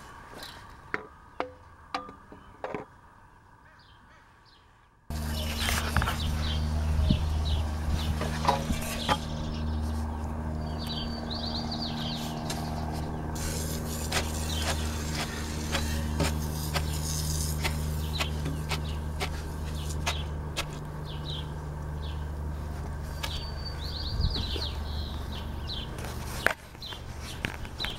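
A steady low machine hum that starts abruptly about five seconds in and runs until near the end, with scattered clicks and knocks throughout and a few bird chirps. The first few seconds are quieter, with only sharp clicks.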